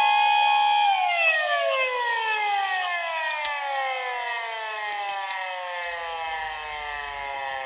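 Police car siren wail: the steady tone holds for about a second, then slowly falls in pitch and fades away. A few faint clicks come from the die-cast toy car being handled.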